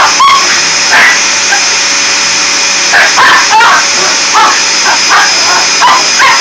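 Vacuum cleaner running steadily, with a constant whine. Short voice-like calls break in over it near the start and repeatedly from about halfway through.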